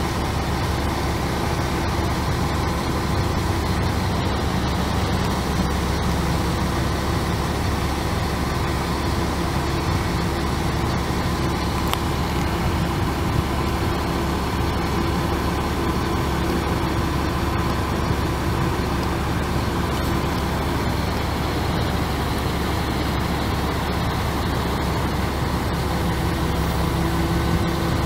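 Caterpillar C7 turbo diesel engine of a Chevrolet C8500 bucket truck idling steadily.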